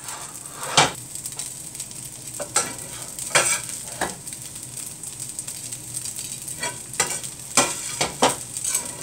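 Metal spoon scraping and knocking against a stainless frying pan as fried grated carrots are scooped out, several separate strokes, over a steady sizzle from the hot pan.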